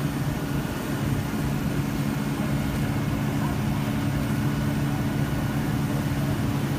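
Heavy utility truck engine running steadily, a low even drone, as it powers the bucket truck's aerial boom.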